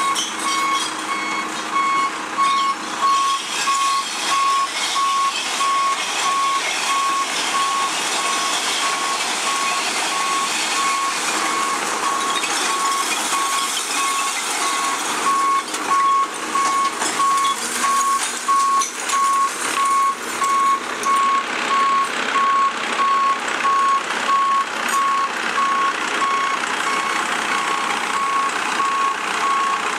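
Warning beeper on a Richards split-body side-loader garbage truck beeping steadily and evenly while its raised body tips out recyclables. Under it, bottles and containers clatter and rattle as they spill out.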